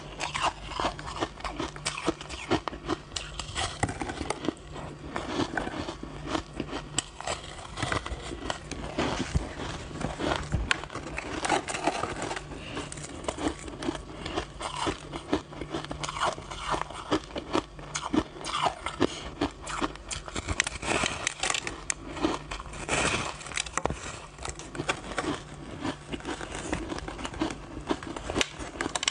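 Person biting and chewing a block of packed shaved ice: a steady stream of crunching and crackling.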